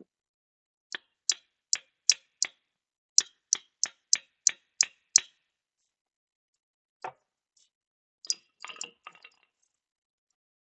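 A run of about a dozen sharp taps, roughly three a second, followed by a lone knock and then a short cluster of clattering knocks near the end.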